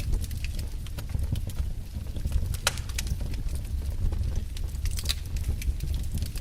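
Wood fire in a fireplace crackling, with a steady low rumble of flames and irregular sharp pops, one louder pop a little before the middle.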